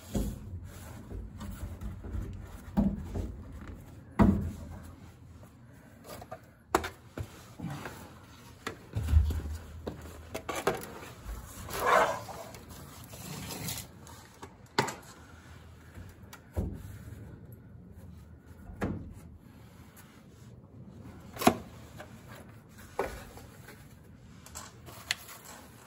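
Irregular metallic knocks and scrapes of a hand tool worked against the rusty steel floor pan and seat rail of a VW Rabbit from underneath, a sharp knock every second or two.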